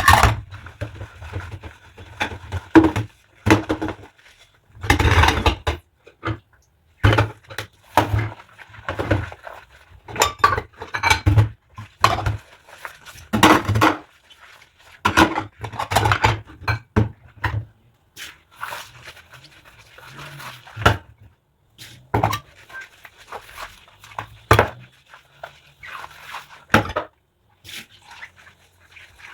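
Rubber-gloved hands washing dishes: irregular squeaks of the gloves rubbing on wet dishes, mixed with clinks of dishes and cutlery, in quick uneven bursts.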